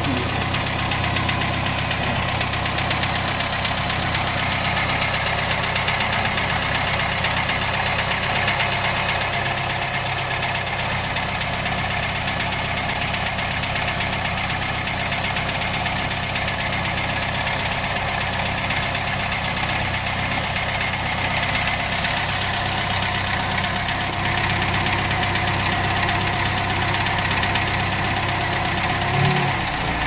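Toyota 2E carbureted 1.3-litre four-cylinder engine idling steadily, warming up after a cold start with its Aisan carburetor's automatic choke working. The low engine note shifts about a second before the end.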